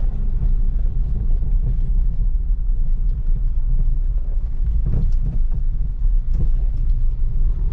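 Steady low rumble of a car driving along the road, with engine and road noise.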